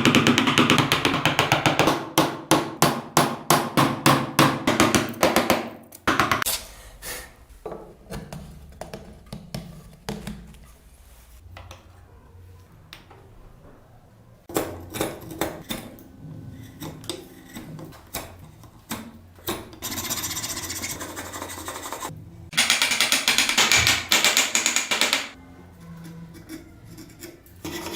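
Hand woodworking on a wooden carving: a run of quick hammer strikes on wood, about three a second, then scattered knocks and, later, stretches of rasping or sanding.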